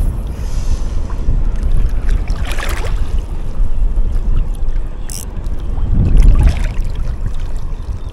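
Wind buffeting an action camera's microphone as a steady, gusting rumble, with water swishing louder twice, about two and a half and six seconds in.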